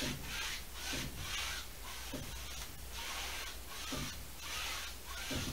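Flat paintbrush scrubbing back and forth on stretched canvas: a rhythmic scratchy swish, about two strokes a second.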